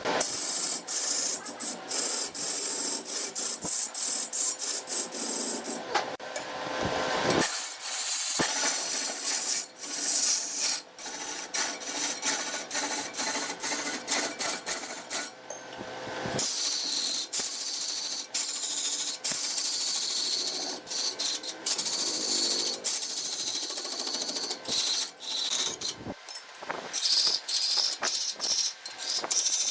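A turning tool cutting into wood spinning on a lathe: a harsh scraping hiss full of rapid clicks. The sound changes abruptly a few times.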